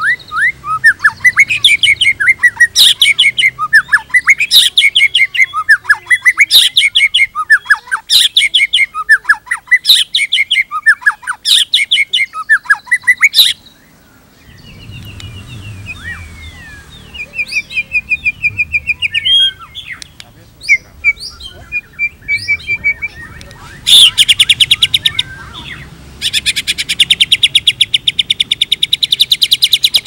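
White-rumped shama singing: quick repeated phrases of short sweeping notes, a brief pause about halfway, then varied whistled notes and, near the end, a long, very rapid rattling trill.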